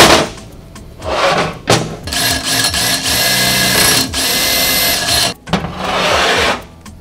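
A sharp knock at the start, then a cordless drill running while it drills out holes in the steel leading-link plates to 1/2 inch. It runs steadily for about three seconds, stops briefly, and runs again for about a second.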